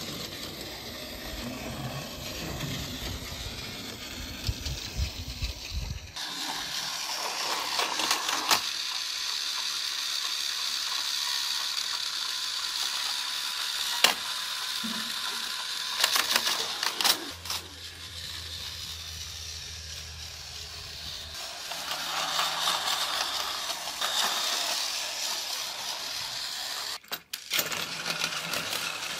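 Battery-powered Plarail toy trains whirring as their small motors and gearboxes drive them along plastic track. A low rattling rumble for the first several seconds gives way to a steadier high whir. Several sharp clicks and clatters come from the toy crane and lever mechanism handling cargo.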